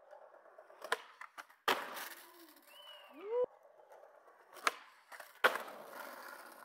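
Skateboard wheels rolling on hard ground, broken by sharp clacks of the board hitting the ground: two in the first two seconds and two more about five seconds in, the last the loudest. A short rising whistle-like tone a little past three seconds.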